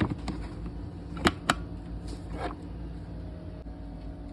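A few light clicks and knocks from handling the mini chainsaw's plastic batteries and charger, two close together about a second and a half in, over a steady low hum.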